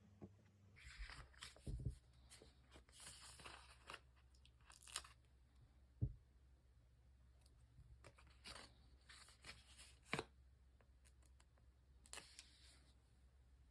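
Paper, stickers and tape being handled and peeled for diary decorating: short, soft rustles and tearing sounds, with a few light taps.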